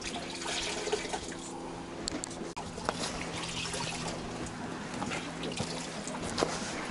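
Wet squelching and dribbling as liquid attractant is squeezed from an ampoule and worked into damp porridge groundbait, with small clicks and a faint steady low hum underneath.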